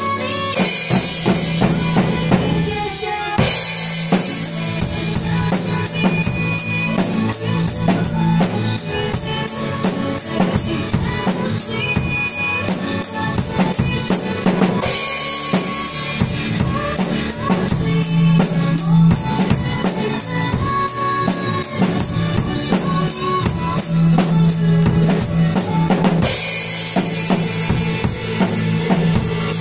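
Acoustic drum kit played in a steady pop beat of kick drum and snare. Cymbals wash over the beat near the start, through the middle and over the last few seconds.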